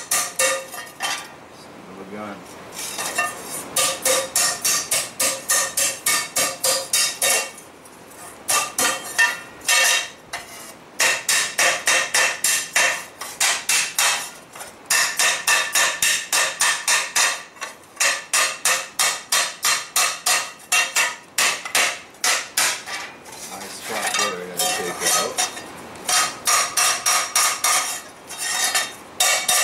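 Hand hammer beating the inside of a forged metal pan against the anvil to shape its bowl: a rapid run of ringing metal-on-metal blows, about four or five a second, with a few short breaks.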